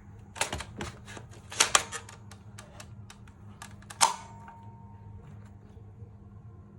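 Sharp clicks and knocks of hard plastic parts being handled, with loud ones about half a second, a second and a half and four seconds in; the last is followed by a brief ringing tone.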